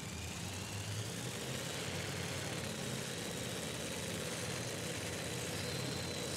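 Supercharged pulling-truck engine idling steadily while hooked to the sled at the start line, with a thin high whine that rises a little in the first couple of seconds and then holds.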